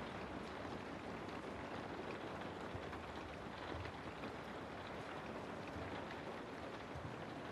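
Steady rain falling through forest trees, an even hiss with faint scattered drop ticks.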